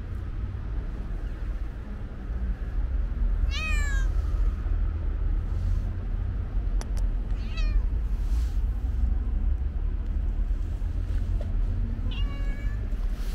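A cat meowing three times, a few seconds apart, each meow falling in pitch, over a steady low rumble. A single sharp click comes near the middle.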